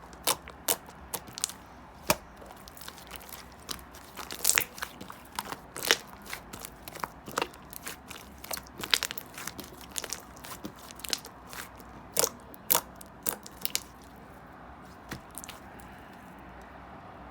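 Slime being squeezed and pressed by hand, giving irregular sharp clicking, crackling pops that thin out over the last few seconds.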